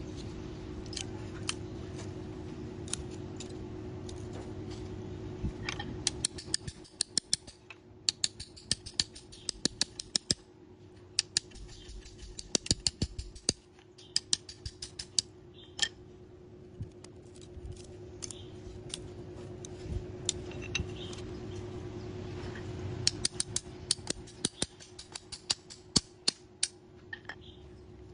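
Bamboo being split and shaved with a knife: runs of quick, sharp clicks and cracks as the fibres part, with single harder knocks from a hammer tapping the knife. A faint steady hum sits underneath.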